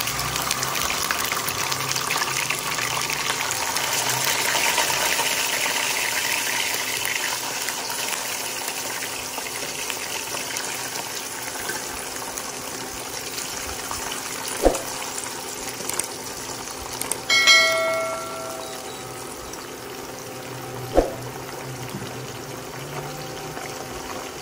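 Whole small fish sizzling and crackling in hot oil in a wok, strongest in the first several seconds after they go in, then settling to a steadier sizzle. About two-thirds of the way through a short beep-like tone sounds, with a sharp click shortly before and after it.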